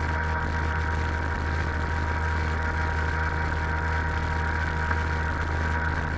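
Sea-Doo XP 787 jet ski's two-stroke twin engine running steadily at a constant cruising throttle, with no change in pitch.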